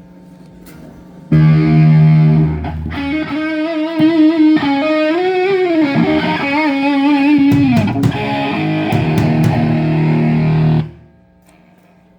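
Distorted electric guitar through an amplifier during a sound check. A low held chord comes in about a second in, followed by a lead line with bent notes and vibrato, and then it cuts off sharply near the end, leaving amp hum.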